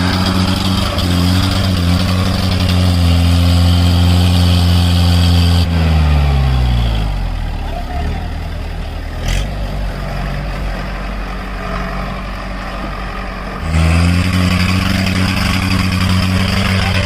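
Off-road jeep engine held at high revs under load in mud; about six seconds in the revs fall away to a low idle, then it revs hard again near the end. A single sharp click sounds during the idle.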